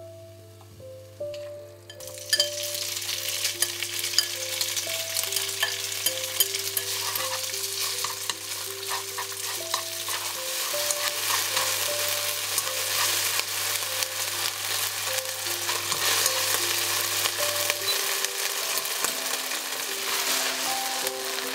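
Thin slices of beef sizzling in hot oil in a wok, stirred with chopsticks. The loud sizzle with crackling spatters starts suddenly about two seconds in and keeps going steadily.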